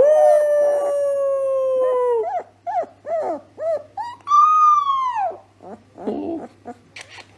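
A dog howling: one long howl that slowly falls in pitch, then a run of short yelps that each rise and fall, and a second howl about four seconds in that rises and then falls away.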